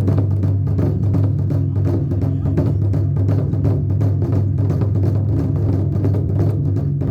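Drums beaten in a fast, steady rhythm of sharp strokes, over a continuous low hum.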